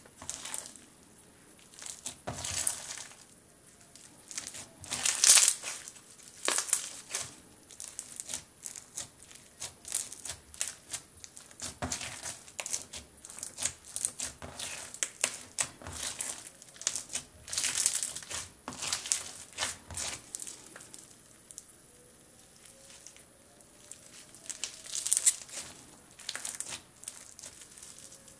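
Crunchy snowcone slime being squeezed and kneaded by hand, its beads crackling and popping in irregular bursts.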